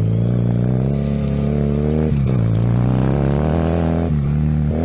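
Motorcycle engine, a 2003 Honda CB250, running as it is ridden at a steady pace. Its note dips briefly and picks up again about two seconds in and once more about four seconds in.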